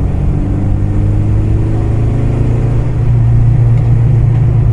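A Mitsubishi Astron 2000 four-cylinder engine and exhaust in a 1985 Sigma, heard from inside the car while driving. The engine note rises gently over the first couple of seconds, then holds at a steady low drone.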